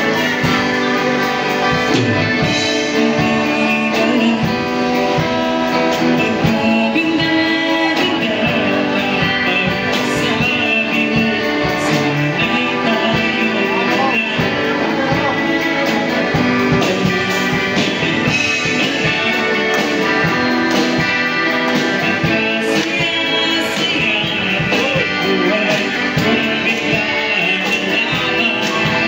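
A live band playing a song, with guitar, drums and singing.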